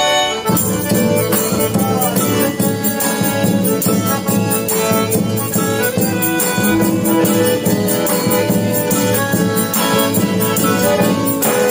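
Live band playing an instrumental passage between verses of a gospel song, with a steady percussion beat under sustained instrument melody.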